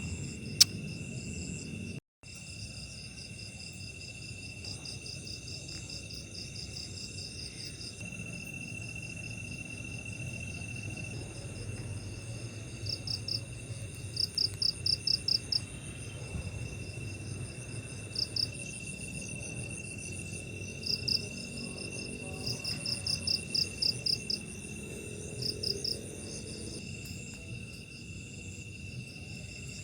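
Night insects calling: a steady high cricket trill, with bursts of rapid chirping pulses that come louder and in clusters in the second half. A single sharp click sounds about half a second in.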